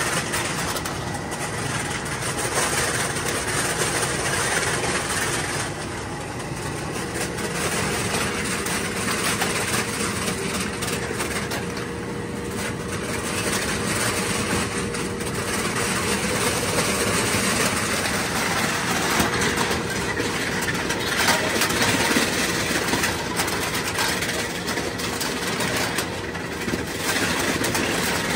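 Aluminum can crusher running steadily, with loose aluminum cans clattering as they tumble off the conveyor into its steel hopper.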